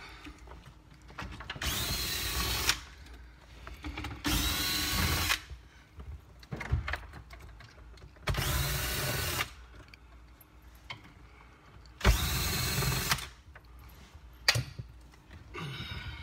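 Cordless drill-driver backing out four screws, one after another. Each run lasts about a second, its whine rising as the motor spins up and then holding steady, with small clicks between the runs.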